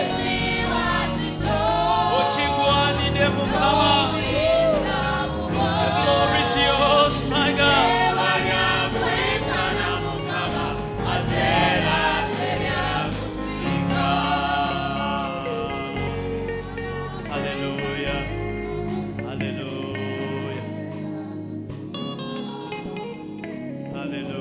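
Gospel worship music: several voices singing together over a backing band, growing softer over the last several seconds as the bass drops out.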